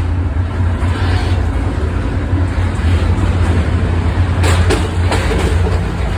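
Express train running: a steady low hum with a few wheel clacks over rail joints about four and a half to five seconds in.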